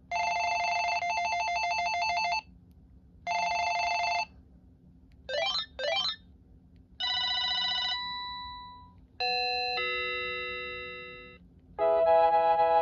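Panasonic KX-TGA101S cordless phone handset sounding its electronic ringtones one after another: a warbling trill ring twice, two quick sweeps in pitch, a steady tone that fades away, a chime that changes pitch once and fades, then a melody starting near the end.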